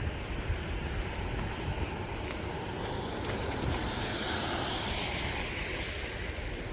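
A vehicle passing on a wet, slushy road: its tyre hiss swells from about three seconds in and fades near the end, over a steady low rumble.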